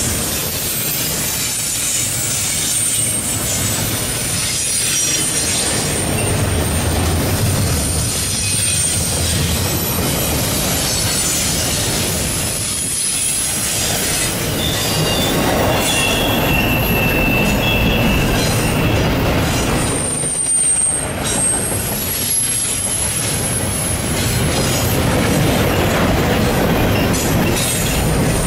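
Intermodal freight train of double-stack container well cars rolling past: a steady rumble of steel wheels on rail, with high-pitched wheel squeal that comes and goes and grows stronger a little past the middle.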